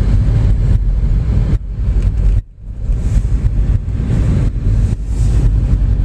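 Low, steady rumble of a car driving, heard from inside the moving car, that drops away briefly about two and a half seconds in.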